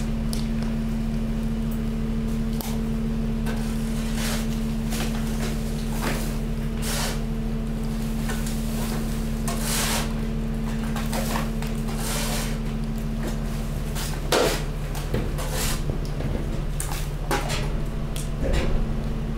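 Hydraulic garbage press running with a steady hum from its power unit while the mixed household waste in the chamber is compacted, crackling and snapping irregularly. The cracks come thicker and louder in the second half, with the sharpest snaps about two-thirds of the way through and near the end.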